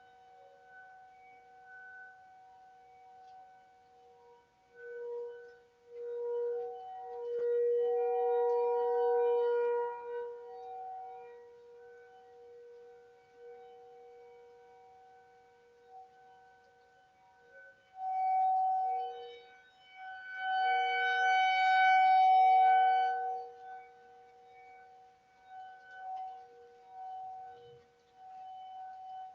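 Outdoor tornado warning sirens holding a steady tone: the louder, higher-pitched Federal Signal 2001-DC a block away over more distant ASC T-128s, heard through a Ring doorbell's microphone. The sound swells and fades in slow waves, loudest twice, about a quarter and about two thirds of the way in.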